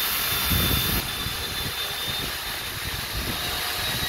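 Corded electric chainsaw running and cutting through a log: a steady high motor whine with chain hiss, the hiss easing a little about a second in.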